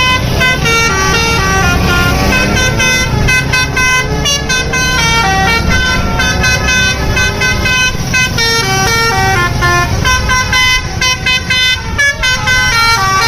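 Basuri telolet bus horns playing quick melodies of short notes that step up and down without pause, over a steady low rumble of bus engines and road noise.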